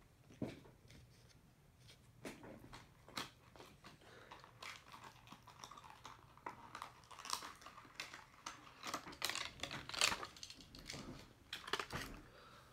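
A diecast car's box being torn and pried open by hand: scattered clicks at first, then busier crinkling and crackling of the packaging through the second half.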